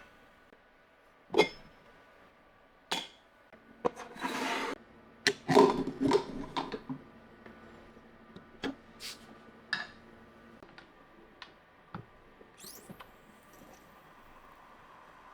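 Scattered clinks and knocks of cups, glassware and utensils being handled and set down, with a short hissing rush about four seconds in and a busier run of clatter just after it.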